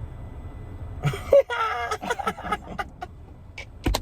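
A steady low rumble under a brief wordless voice sound, like a mumble or a short laugh, about a second in. It is followed by scattered light clicks and a sharp click near the end.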